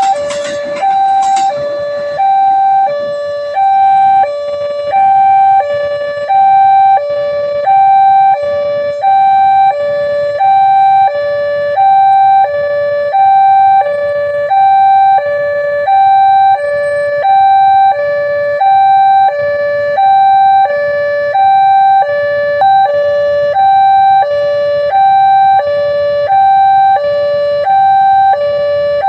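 Railway level-crossing warning siren sounding a steady two-tone hi-lo alarm, a higher and a lower tone alternating about once a second, warning that a train is approaching the crossing.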